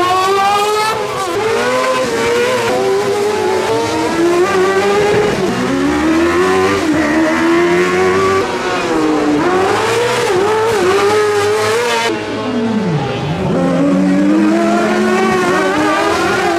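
Rally car engines revving hard at speed, the pitch climbing and dropping again and again, with one deep dip about thirteen seconds in before it climbs once more.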